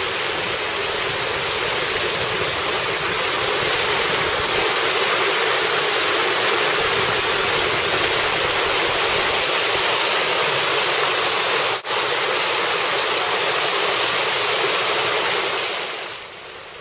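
Fountain jets spraying and splashing into their basin: a loud, steady rush of water that cuts out for an instant just before 12 seconds in and fades near the end.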